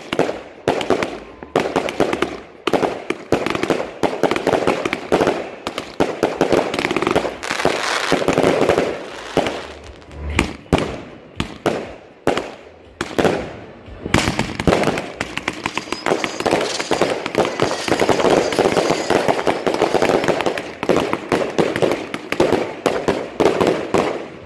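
Show Mix 88 and Super Show 9 multi-shot fireworks cakes firing in rapid succession: a dense stream of launch shots and aerial bursts. It becomes an almost unbroken rattle of reports in the second half.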